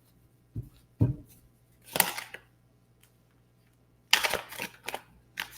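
Tarot cards being handled on a table: a few sharp taps and short rustles of cards sliding or being laid down, with a brief cluster of them near the end.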